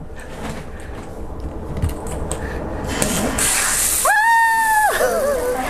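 Water spraying from a newly installed handheld shower head once the valve is turned on, a steady hiss that grows louder about three seconds in. A brief high-pitched squeal sounds about four seconds in.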